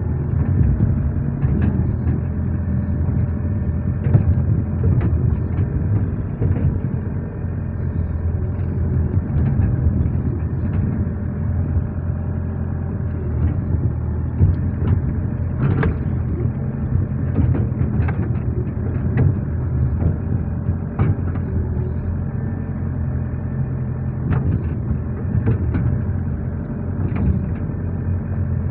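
Excavator diesel engine running steadily under load while the bucket digs and spreads wet mud, with scattered short knocks.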